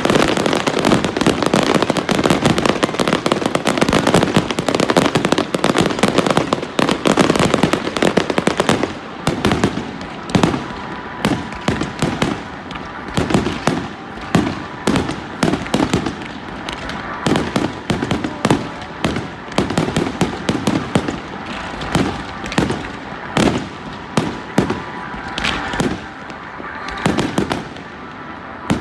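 New Year's fireworks going off: a dense, rapid run of bangs for about the first nine seconds, then thinning to separate loud bangs about a second apart.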